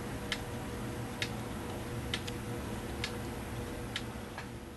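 Hermle 1161-853 grandfather clock movement ticking steadily at about one tick a second as its pendulum swings, running again after repair. It fades out near the end.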